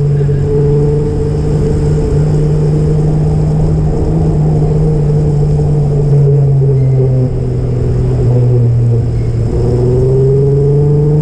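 A motor vehicle's engine droning steadily. Its pitch drops a little in the middle and climbs again near the end as the engine speed changes.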